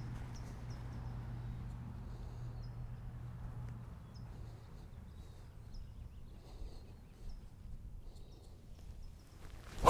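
Quiet golf-course air with faint, short bird chirps and a low steady hum that fades out about four seconds in. Right at the end, a single sharp crack of a driver striking a golf ball off the tee.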